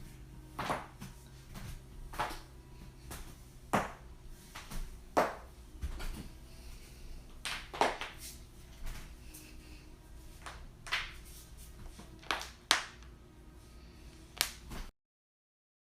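Joints cracking: a dozen or so sharp pops at irregular intervals over a faint low hum. The sound cuts off abruptly near the end.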